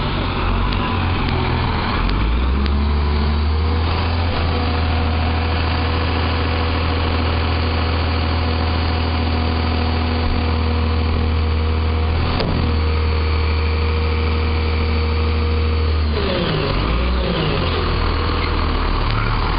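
Diesel engine of a Sterling Condor garbage truck with a McNeilus automated side-loader body, running at a steady raised speed with a steady whine over its low hum while stopped at the curb. There is a single knock about twelve seconds in, and the engine's pitch wavers and drops about sixteen seconds in.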